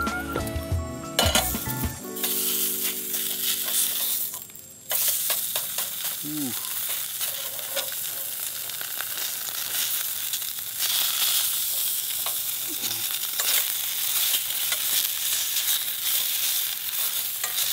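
Steak fat trimmings sizzling and crackling as they render in a hot frying pan, stirred now and then with a utensil. The sizzle sets in about five seconds in, after a few seconds of background music.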